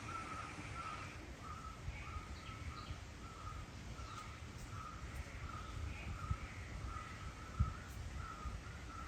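An animal calling a short, even note over and over, a little under two a second, faint over a low rumble.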